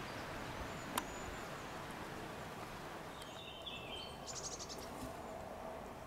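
Quiet woodland ambience with a steady hiss, a sharp click about a second in, and a small bird singing just after three seconds: a few short stepped notes followed by a quick, high trill.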